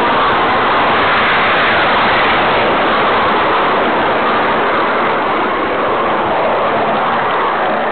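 Steady rushing hiss heard from on board an Aster 45 mm gauge JNR 9600 live-steam model locomotive as it runs along the track, with no separate exhaust beats or clicks standing out.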